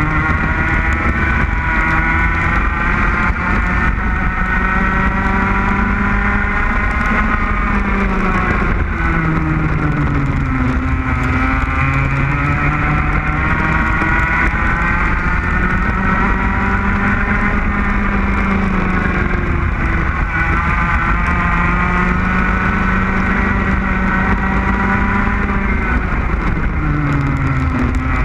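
Racing kart engine at full throttle recorded on board, its pitch climbing slowly along the straights and dropping sharply three times as the kart slows for corners, then climbing again. A low rumble of wind and vibration runs under it.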